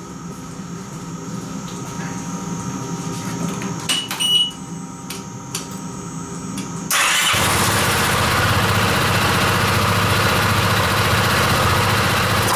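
Piaggio MP3 500 HPE single-cylinder scooter engine, freshly rebuilt with a new crankshaft, being started: a fainter steady hum with a few clicks, then about seven seconds in it catches and runs loud and steady. It runs quietly, with no knock. The hissy intake noise comes from the air filter being off.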